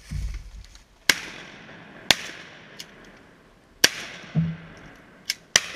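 Four shotgun shots fired at ducks, one to two seconds apart, each loud crack followed by a long echoing tail.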